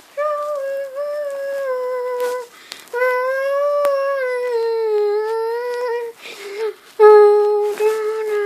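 A person humming a slow tune in long, held notes that slide gently up and down in pitch, in three or four phrases with short breaks between them.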